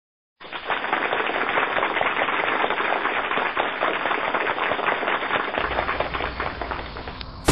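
Dense, rapid crackling of many sharp pops, starting after a brief silence and stopping about five and a half seconds in, when a low outdoor rumble takes over.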